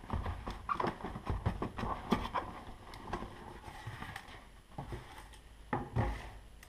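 Cardboard shipping box being handled and pulled off an inner box: irregular rustling and scraping of cardboard with scattered knocks against a wooden workbench.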